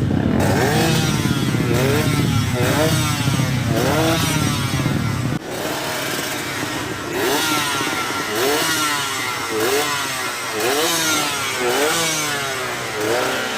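Suzuki Tornado motorcycle engine being revved over and over, its pitch climbing and falling back about once a second. The deep rumble underneath drops away suddenly about halfway through, while the revving carries on.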